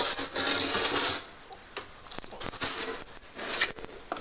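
The metal ash pan of a DS wood and coal stove being pulled out along its rails, metal scraping on metal. There is a long scrape in the first second, light clanks after it, and a shorter scrape near the end.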